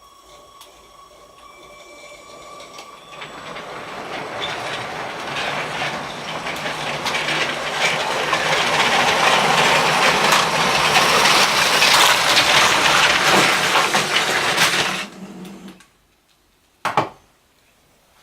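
A train running on its track, clattering louder over about ten seconds as it approaches, then cutting off abruptly. A steady ringing tone fades out in the first few seconds, and one short sharp knock comes near the end.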